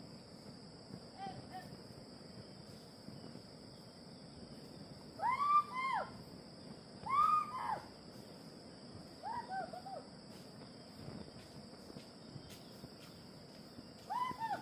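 Short, clear animal calls, each a rise-and-fall note, coming in groups of one to three notes; the loudest are about five and seven seconds in, with another group near the end. A faint steady high-pitched hum runs underneath.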